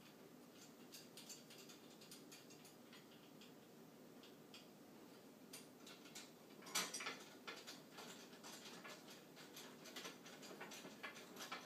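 Faint, irregular clicks and taps of small metal hardware being handled and tightened by hand: nuts going onto a steering wheel hub kit. A louder cluster of clicks comes about seven seconds in.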